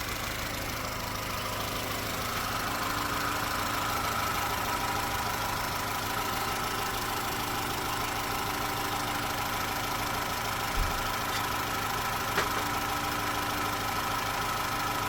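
Opel Astra H's 1.4-litre Z14XEP four-cylinder petrol engine idling steadily, freshly rebuilt with a new head gasket and timing chain. Two brief clicks are heard about 11 and 12 seconds in.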